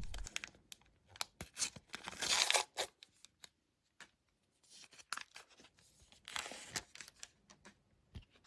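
Faint handling of a wrestling trading-card pack: the wrapper is torn open and the cards are shuffled, with scattered small ticks and two short rustling bursts, about two and six and a half seconds in.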